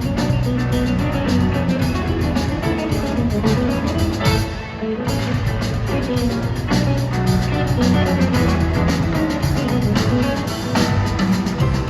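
Live rock band music: electric guitar over bass and drum kit, with a short drop in the drums about four and a half seconds in.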